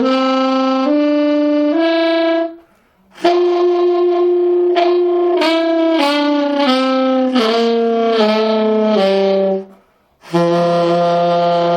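Saxophone playing short melodic phrases with a tongue growl, the tongue rolled as if pronouncing an R: the simplest sax ronquido, used in cumbias. The playing breaks off twice briefly.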